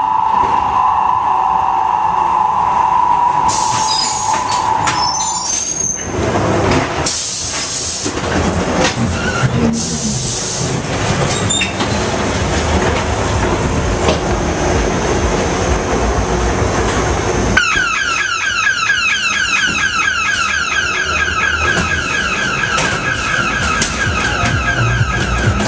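Ghost train car rumbling along its track through the dark ride, with the ride's effects sounding over it: a steady high tone at first, several short loud hisses a few seconds in, and a fast repeating warble over the last eight seconds or so.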